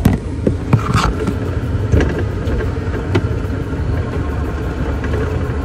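Golf cart riding over a rough trail: a steady low rumble, with several rattling knocks from the cart in the first three seconds.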